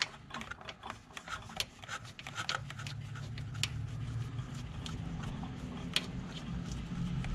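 Small irregular metal clicks and light rubbing as fingers work a ground wire's terminal and nut onto a bolt on the engine crankcase, over a low hum that grows louder from about three seconds in.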